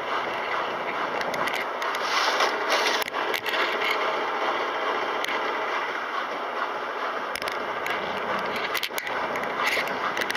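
Kelvinator K605 washing machine running through its cycle: a steady mechanical churning with scraping and irregular clicks.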